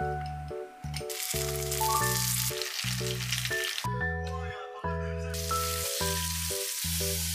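Background music with a steady bass line, over two stretches of food sizzling in hot oil. The first starts about a second in and the second about five seconds in, where beef slices are frying in the pan.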